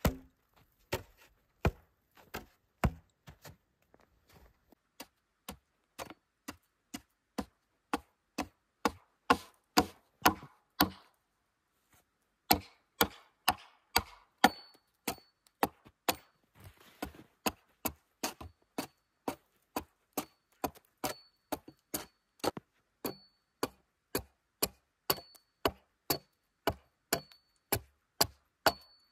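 Hatchet chopping at the edge of an upright wooden board in short repeated strokes, about two a second, with a brief pause about twelve seconds in; some strokes ring faintly.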